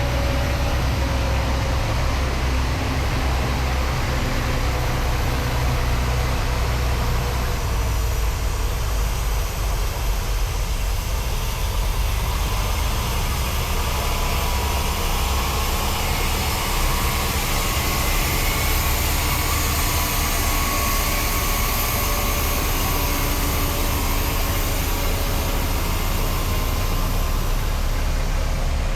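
A heavy vehicle's engine running steadily, with constant low-pitched noise and no changes in load.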